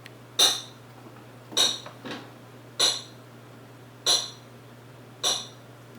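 A metal knife struck against a dish in a slow, even beat: five ringing clanks about 1.2 seconds apart, with a softer extra tap after the second. It is the signal that tells the pet rats treats are coming.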